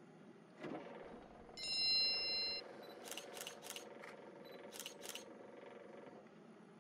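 A brief whoosh, then an electronic chime of several steady tones lasting about a second, followed by about six sharp clicks: an animated 'Like' button sound effect.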